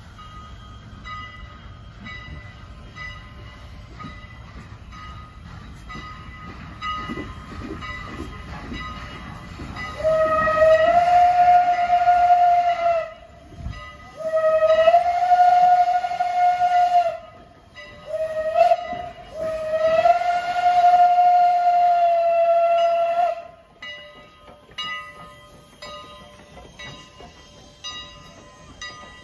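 Strasburg Rail Road No. 89's shrill former Pennsylvania Railroad banshee steam whistle blowing two long blasts, a short one and a final long one: the grade-crossing signal, each note sliding up in pitch as it opens. The 2-6-0 steam locomotive is pulling its train out, and quieter running and knocking of the train come before and after the whistle.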